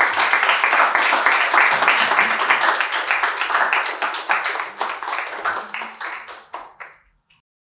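Audience applauding. The clapping thins to a few scattered claps near the end and stops about seven seconds in.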